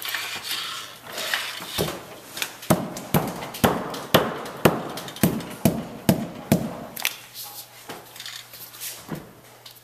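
A series of sharp knocks, about two a second, starting about two seconds in and fading to fainter ones near the end.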